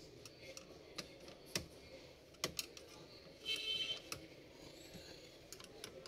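Screwdriver clicking and scraping on the screws and metal bracket of a laptop-style processor heatsink as it is screwed back down after fresh thermal paste: scattered sharp ticks, with a short scraping rattle about three and a half seconds in.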